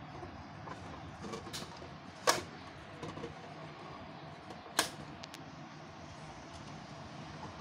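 Light plastic clicks from a toy kitchen set being handled, with two sharper clicks about two and a half seconds apart over faint steady background noise.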